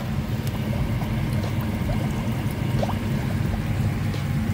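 Water running and bubbling into plastic fry trays from a pumped PVC supply line, with a few small gurgles, over a steady low mechanical hum.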